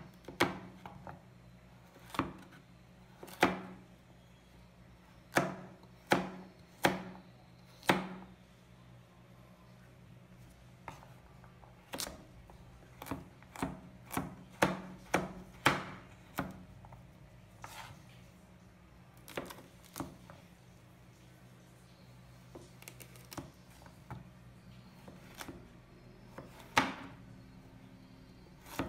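A chef's knife chopping a carrot on a wooden cutting board: single sharp knocks of the blade striking the board, irregularly spaced, with a short pause partway through.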